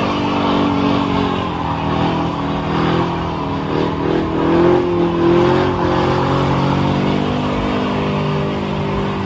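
Car engine held at high revs during a burnout, its pitch wavering and rising a little around the middle, with the rear tyres spinning and screeching on the asphalt.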